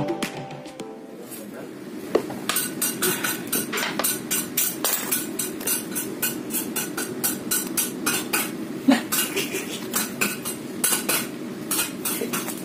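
Kitchen knife cutting through a block of tempe on a wooden cutting board, a sharp knock against the board with each stroke, about three a second, starting about two seconds in.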